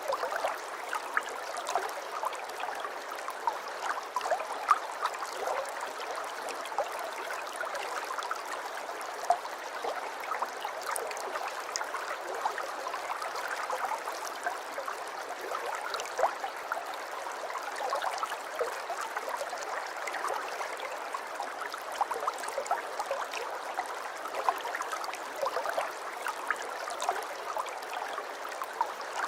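Aquarium water trickling and bubbling steadily, with a constant stream of small drips and pops.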